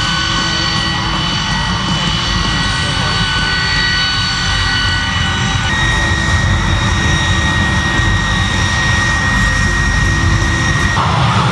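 Aircraft turbine engine running loud and close: a steady high whine over a deep rumble. The whine shifts pitch about six seconds in, and the rumble changes near the end.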